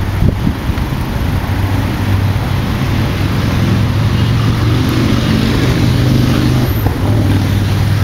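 Steady rushing noise with a low steady hum: road traffic and wind on the microphone while moving along a bike lane beside a line of cars.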